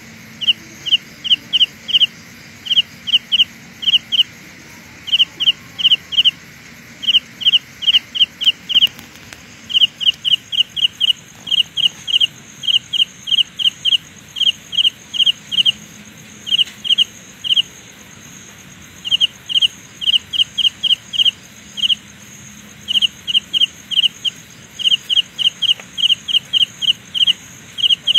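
Carolina ground cricket chirping: short, high chirps in irregular clusters of two to six, about four or five a second, separated by pauses of roughly a second.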